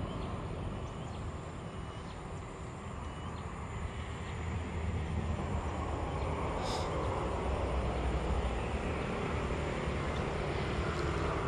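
Steady low outdoor rumble with no speech, with one brief sharp click about two-thirds of the way through.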